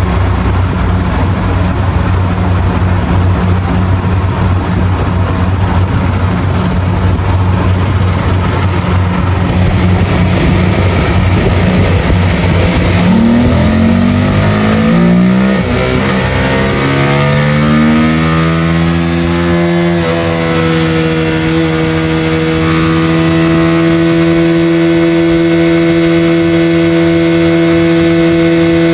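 Motorcycle engine running on a roller dynamometer. It holds a steady low note at first, then its pitch climbs over several seconds as the bike accelerates, and it settles into a steady higher note near top speed.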